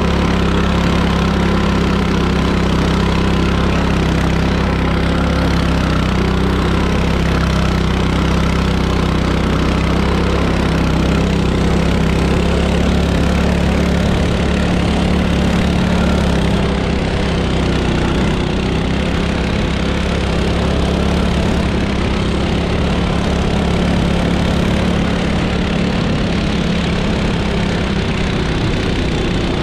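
Small motorised-snowboard engine running steadily at a constant pitch, a little quieter from about halfway through.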